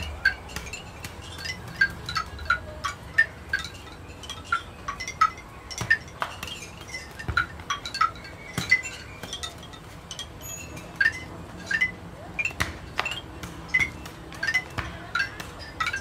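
Light, irregular tinkling clinks at varying pitches, several a second, each ringing briefly, over a faint low rumble.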